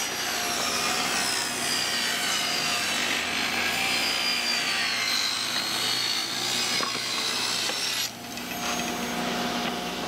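Table saw cutting through a wooden board, a steady rasping run with a wavering high whine from the blade. About eight seconds in the cut ends and the saw keeps running free with a steady hum.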